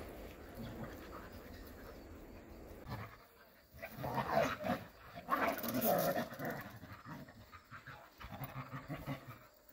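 Several Jindo dogs play-fighting, panting and growling, with the loudest bout of growls and snarls from about four to six and a half seconds in.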